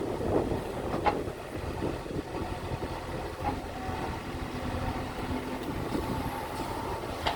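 Heavy diesel machinery running steadily with a low rumble, with a few short knocks over it.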